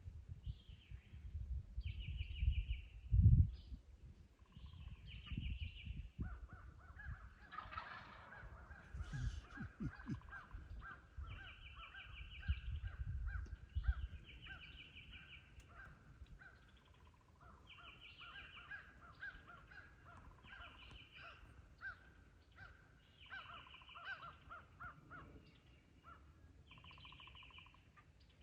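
Crows cawing over and over, in runs of calls that come and go. In the first half, low rumbling thumps on the microphone, the loudest about three seconds in.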